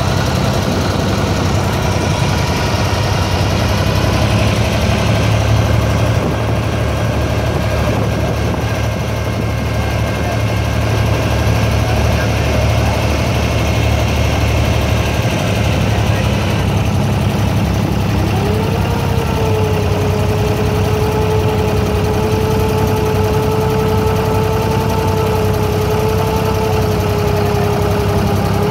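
Abra water taxi's diesel engine idling steadily with a low, even hum. About two-thirds of the way through, a steady whine joins it, rising briefly and then holding.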